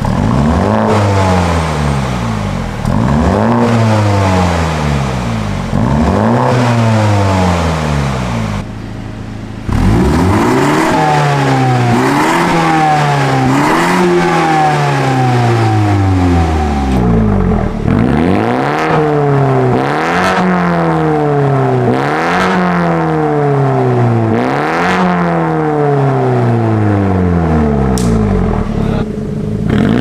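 BMW M135i's 2.0-litre turbocharged four-cylinder engine revved in quick free-revs, each rising then falling in pitch. It goes about three times through the stock exhaust, then after a short break over and over, about every second and a half, through a Fi Exhaust valvetronic catback with catless downpipes, valves closed in comfort mode.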